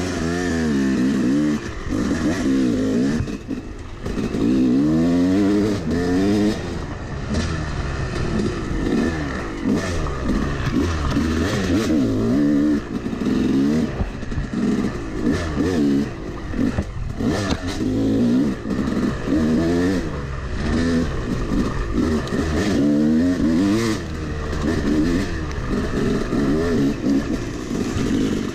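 Yamaha YZ250 two-stroke dirt bike engine, ridden on a dirt trail and revving up and down again and again, its pitch rising and falling with each twist of the throttle.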